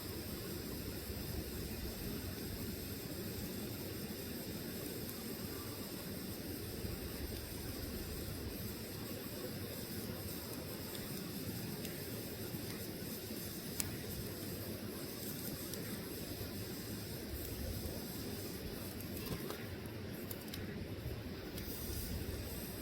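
Log fire burning with a steady low rush and hiss, broken by sparse faint crackles and one sharp pop about fourteen seconds in.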